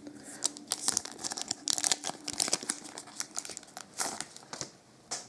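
Shiny foil wrapper of a Topps Chrome soccer card pack being torn open and crinkled in the hands: a run of short, crackly rustles, loudest about four seconds in.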